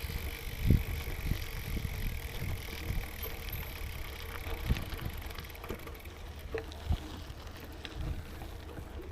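A gravel bike riding along on 38 mm tyres: a steady low rumble with wind on the microphone, and scattered knocks from bumps. The loudest is a sharp thump just under a second in.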